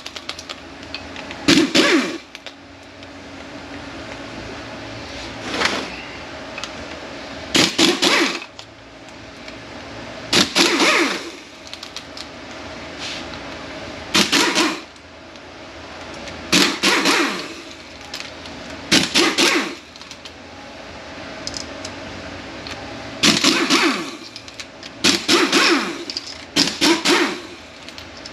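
Power tool running in about ten short bursts, spinning out the T30 Torx bolts of a Mercedes 722.9 automatic transmission's back cover.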